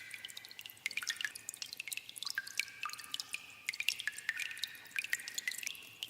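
Water dripping in a cave: many irregular drops, several a second, each landing with a sharp plink and a short ringing tone.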